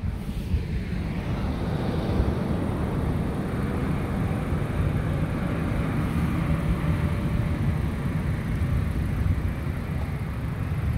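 Steady road and engine noise inside a moving car, a low rumble that grows louder over the first second or two and then holds.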